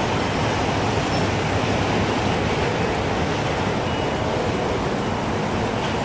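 Steady rushing wind, with a single short wind-chime tone about four seconds in.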